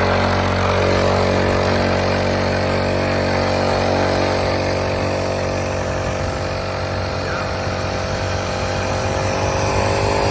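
Small four-stroke motorbike engine running steadily, its revs easing off a little midway and picking up again near the end.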